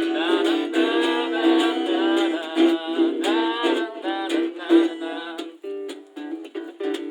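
Acoustic guitar being played, thin-sounding with no bass. A voice sings along for roughly the first five seconds, then the guitar goes on alone.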